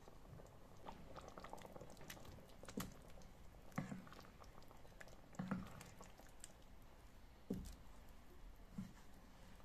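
A wooden spatula stirring a thick ground-beef, potato and tomato stew in a frying pan: soft wet squelching with about five short knocks of the spatula against the pan.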